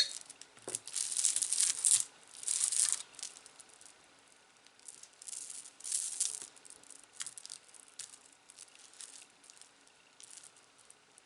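Jewelry being handled: beads and chains rattling in short bursts, with small sharp clicks. Busiest in the first three seconds, then sparser, scattered clicks.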